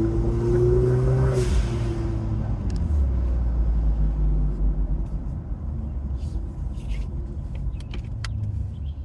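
Turbocharged four-cylinder car engine pulling under boost with rising pitch, then the XSPower blow-off valve letting go with a hiss about a second and a half in as the throttle is lifted. The engine then runs low and steady off the throttle, with a few short clicks later on.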